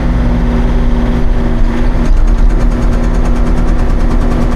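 Hauyee 35c mini excavator's engine running steadily, with its hydraulic breaker hammer pounding granite ledge in rapid, even blows from about two seconds in.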